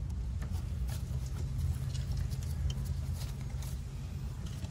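Faint scratchy clicks and rustles of rubber engine hoses being pressed into plastic retaining clips, a few scattered ticks over a steady low background hum.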